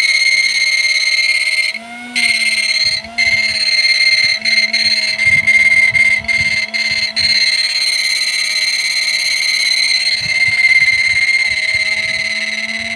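Mini MOSFET circuit running off a battery with a loud, steady high-pitched whine. It cuts out briefly around two and three seconds in, then flickers off several times up to about seven seconds in.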